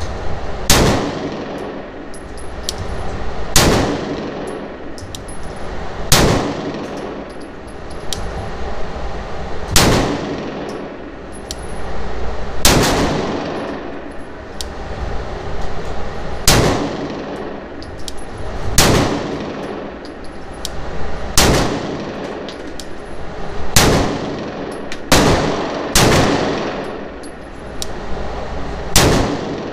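Glock 19 9mm pistol fired in slow, deliberate single shots, about a dozen a couple of seconds apart, each shot echoing in the enclosed indoor range. Fainter sharp ticks fall between the shots.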